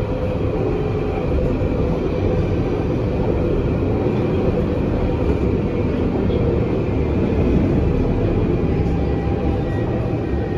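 Cabin noise inside a moving Songjiang light-rail tram: a steady rumble of its steel wheels running on the rails. A faint thin whine comes in near the end.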